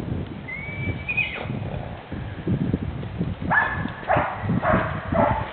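A horse neighing: a short high call about half a second in, then a longer shaking whinny broken into several pulses in the second half, over the dull thuds of hooves moving on the ground.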